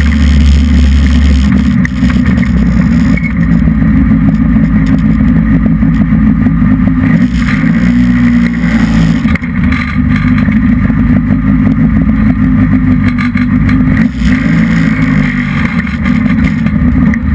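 Hobby stock race car's V8 engine running at low speed, heard loud from inside the cockpit. The engine note dips and rises briefly about eight seconds in.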